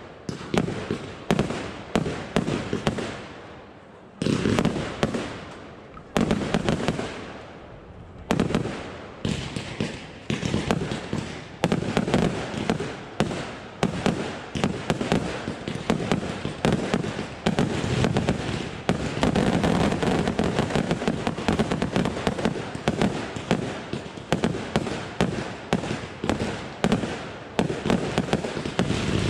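Consumer-category (F2) fireworks firing. For the first eight seconds, salvos of launches and bursting shells come about every two seconds, each trailing off. From about nine seconds in, the bangs run together into a dense, continuous barrage.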